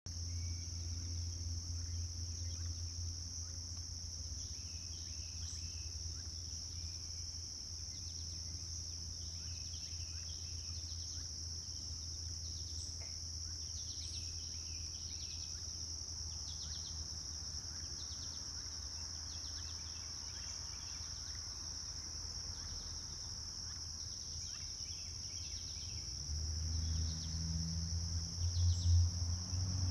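Steady high-pitched insect chorus of crickets or katydids, with scattered short chirps. A low hum underneath grows louder near the end.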